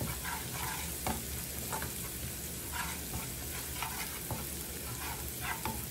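Crushed garlic and coriander seed frying in oil in a nonstick frying pan, a steady sizzle, while a metal spoon stirs through it with short irregular scraping clicks against the pan.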